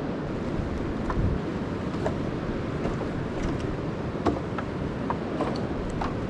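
A steady low rushing noise with scattered light clicks and knocks, from sticks being laid against a log shelter.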